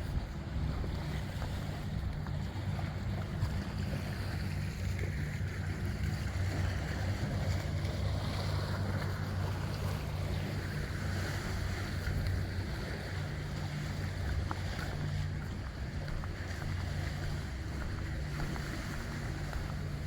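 A motorboat engine running steadily, a low drone with a steady pitch, under wind noise on the microphone.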